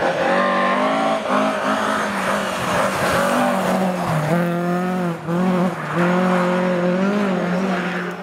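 Ford Escort Mk2 rally car's engine running at high revs. Its pitch drops briefly several times as the driver lifts off and changes gear, then climbs again.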